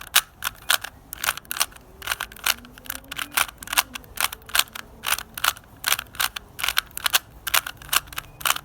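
Rubik's cube being turned quickly by hand, its plastic layers clicking into place about three to four times a second.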